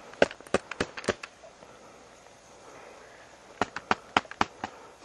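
Two quick runs of sharp clicks or knocks, about six each: one in the first second and one starting about three and a half seconds in.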